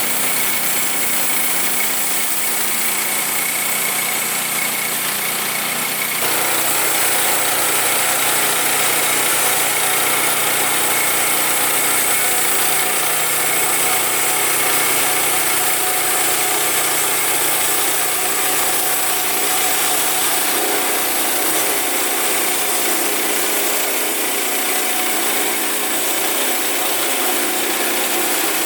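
Woodland Mills HM122 band sawmill running on its 9.5 hp gas engine during a first cut through a dry cedar log, a steady engine-and-blade drone. About six seconds in the sound steps up, louder and deeper, and holds there.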